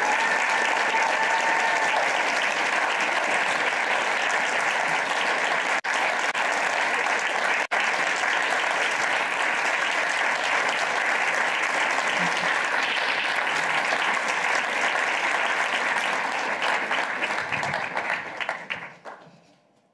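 Audience applauding steadily, with a brief cheer in the first couple of seconds; the applause fades out near the end.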